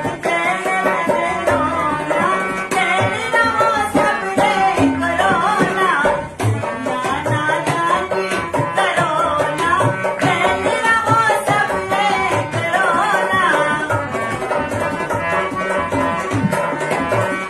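Indian folk song: a harmonium plays the melody over a dholak's hand-drummed beat, with a woman singing.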